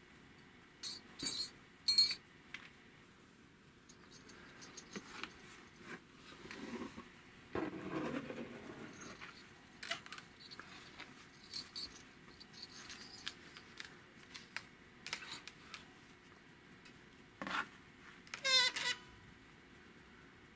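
Handling noise as puppets are lifted out of a cardboard box: scattered rustles, scrapes and light knocks against the cardboard and packing.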